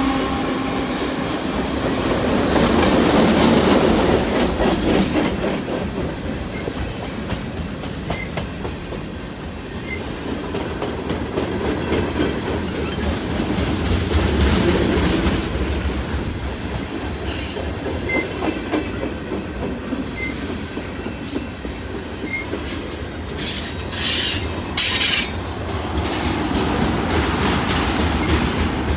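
CN freight train cars rolling past at close range, wheels clicking over the rail joints over a steady rumble. There are a couple of brief high-pitched screeches near the end, typical of wheel flanges squealing on the rail.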